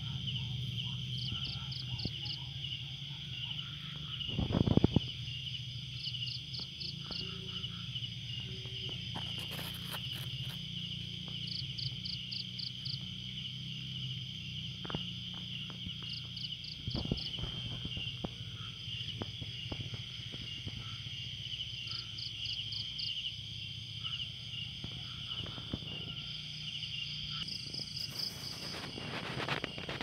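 Crickets chirping: a continuous high trill, with short runs of four or five quick chirps repeating about every two seconds. A loud knock comes about five seconds in.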